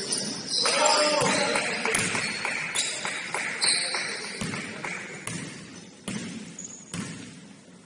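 A basketball being dribbled on a gym floor, bouncing about once a second, with players' voices in the background.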